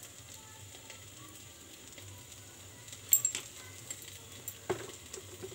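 Refined cooking oil heating in a non-stick kadai on a gas burner, giving a faint sizzle and crackle. A few sharp clicks stand out about three seconds in, with another shortly before the end.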